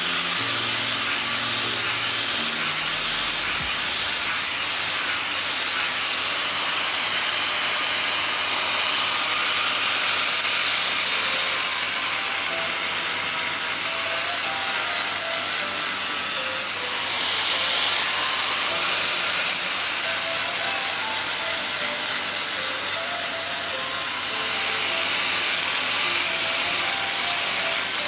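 Sander grinding down a welded patch on metal: a steady, continuous abrasive rasping with small variations in pressure.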